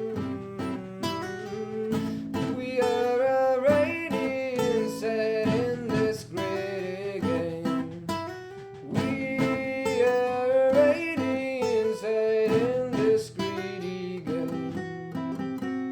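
Live acoustic band playing: plucked and strummed acoustic guitars over bass, with a wavering melody line carried above them.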